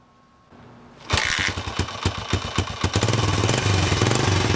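Suzuki DR-Z125L's 124 cc air-cooled four-stroke single-cylinder engine starting up about a second in, firing unevenly at first, then settling into a steady idle. It is being run up just after an oil change.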